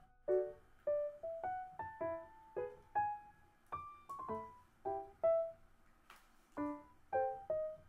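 Background music: a light piano melody of single struck notes, each fading away, about two a second, with a short pause about six seconds in.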